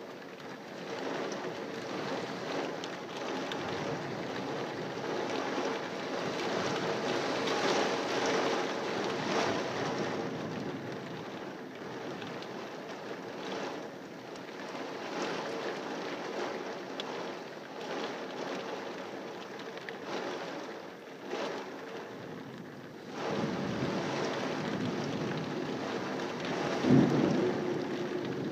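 Heavy rain and gusting wind of a severe thunderstorm: a steady rushing that swells and eases with the gusts. A sudden louder thump comes near the end.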